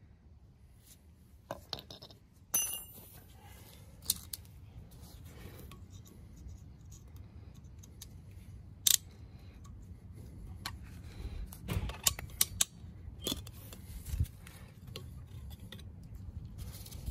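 Scattered metallic clicks, clinks and scrapes as snap ring pliers work a rusty, seized wheel-bearing snap ring out of its groove in a Honda Civic front spindle, with one ringing metal clink about two and a half seconds in.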